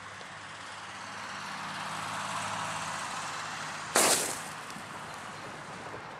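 Black-powder charge packed into a mobile phone going off with a single sharp bang about four seconds in, with a short rushing tail, after a few seconds of steady hissing as the fuse burns down into the phone.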